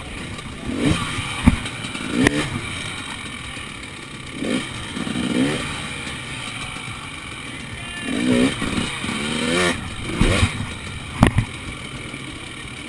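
Enduro motorcycle engine revved in short blips as the bike works slowly over logs, the pitch rising and falling with each throttle burst. A few sharp knocks, about a second and a half in, a second later, and near the end, from the bike striking the obstacles.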